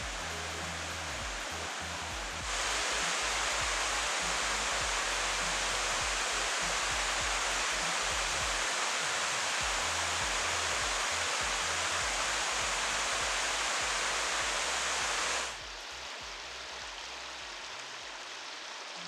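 Rushing water of a river and waterfalls in flood: a steady hiss of water that steps up louder about two and a half seconds in and drops back about three and a half seconds before the end.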